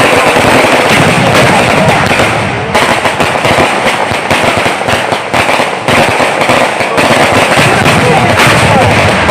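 A long barrage of firecrackers going off in rapid, unbroken succession: dense, loud crackling and popping with no pause.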